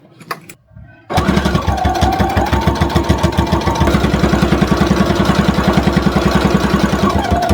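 Brother CE1100 Project Runway sewing machine stitching at a steady speed: a fast, even patter of needle strokes over a thin motor whine, starting about a second in after a few clicks.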